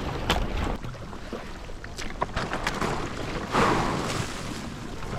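Kayak paddling through broken sea ice: paddle strokes in the water with a few sharp knocks, and a louder swish of water about three and a half seconds in. Wind rumbles on the microphone at the start.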